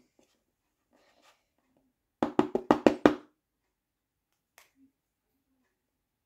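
A quick run of about seven light knocks in about a second, a little over two seconds in, from a small plastic sand mold being tapped as kinetic sand is packed into it. One faint click follows about two seconds later.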